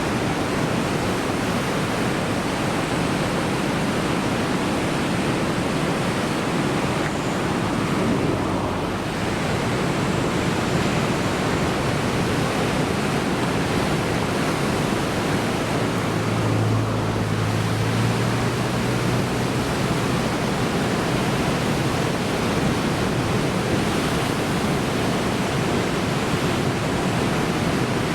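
Heavy typhoon swell breaking on the shore: a continuous, dense rush of surf. A low hum comes in for a few seconds past the middle.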